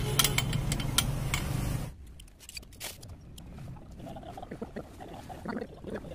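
Metal hand tools and engine parts of a dismantled Hero Karizma motorcycle engine clinking and tapping. There are several sharp clinks in the first two seconds over a low steady hum that cuts off abruptly, followed by fainter scattered taps.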